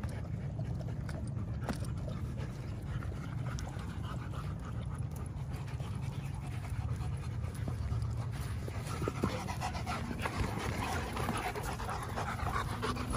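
Dogs panting hard as they run and play together, over a steady low rumble.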